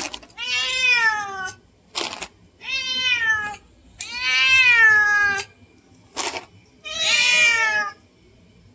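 Black cat meowing insistently for treats: four long meows, each falling in pitch, with two brief sharp sounds between them. The cat is demanding more Greenies and sounds pissed off.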